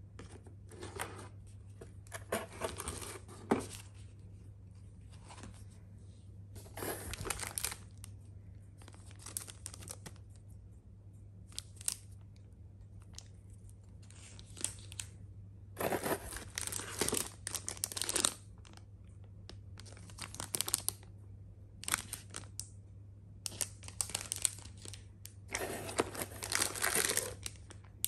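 Paper and plastic packaging being handled: tissue paper, cardboard and a plastic bag rustling and crinkling as items are lifted out of a cardboard box, in short spells with pauses between them.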